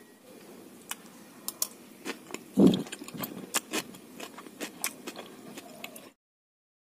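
Close-up eating sounds of a bite of fried mpek-mpek being chewed: a run of small irregular clicks, with one louder, lower sound about two and a half seconds in. The sound cuts off suddenly about six seconds in.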